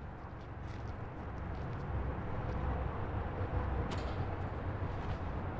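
Outdoor ambience: a low rumble that grows steadily louder, with a few faint taps, the clearest about four seconds in.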